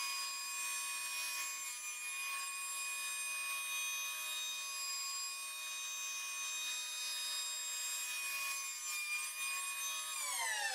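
Electric hand planer, mounted upside down as a benchtop jointer, running at full speed with a steady high whine while a wooden board is fed across its cutter block, shaving the edge with a hissing cut. Near the end the motor is switched off and the whine falls in pitch as it spins down.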